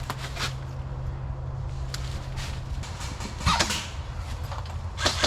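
A few scattered sharp clicks and knocks over a low steady hum, the loudest about three and a half seconds in and a quick cluster near the end.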